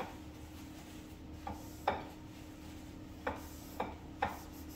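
A handful of faint, light taps and rubs against a plate as garnish is placed around its edge, over a steady low hum.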